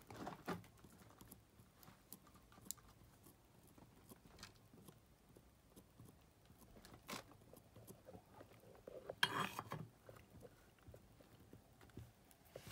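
Quiet soldering-bench work: a few faint clicks and taps as a soldering iron and fingers work on a remote control's small circuit board, with one short rustling noise about nine seconds in.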